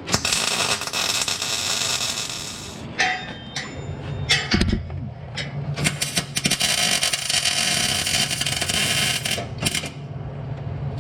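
MIG welder tack-welding steel exhaust hangers: two long runs of crackling and hissing arc, the first right at the start and the second from about six seconds in, with short clicks and taps between them.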